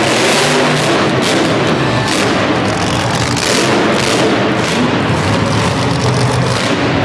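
Grave Digger monster truck's supercharged V8 revving hard, its engine note rising and falling with the throttle.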